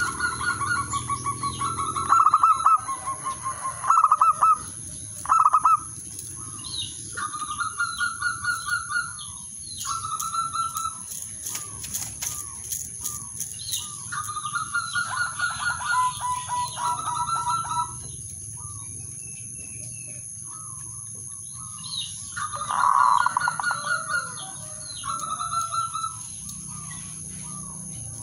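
Male zebra dove (perkutut) cooing in repeated phrases of rapid, staccato coos, with a quieter gap a little after the middle. A short burst of wing flapping comes a little before the middle. A steady high whine runs underneath.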